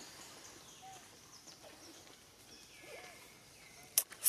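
Quiet outdoor ambience with several faint chirping animal calls that sweep downward in pitch. Two sharp clicks come about four seconds in and are the loudest sounds.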